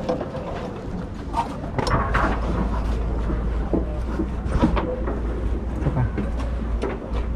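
Steel lifeboat davit gear being handled as the gripes are secured: scattered metal clanks and knocks, over a steady low rumble that begins about two seconds in.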